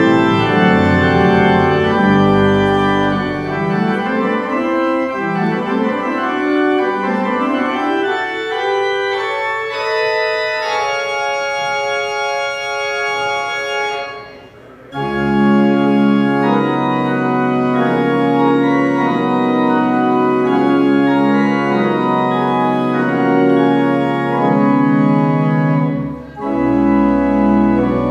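Church organ playing sustained chords. The deep pedal bass drops out for a higher passage, then after a brief break about halfway through it returns under loud held chords, with another short pause near the end.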